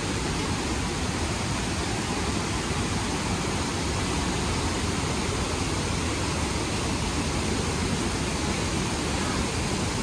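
Steady rush of a waterfall and its mountain creek pouring over rock, an even hiss-and-roar noise without breaks.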